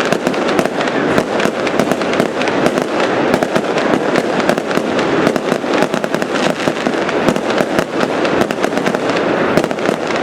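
Fireworks display: a dense, continuous barrage of cracks and pops with no let-up.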